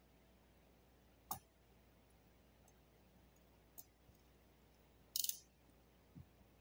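Quiet room with a few sharp little clicks and taps from hand work with film and a knife on a wood workbench, the loudest a short run of quick clicks about five seconds in, then a soft tap.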